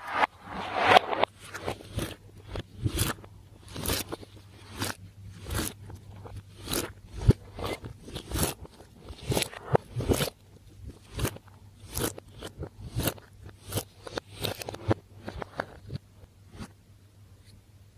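Slime being squeezed and worked by hand, with a burst of crackling at first and then sharp irregular pops and crackles once or twice a second.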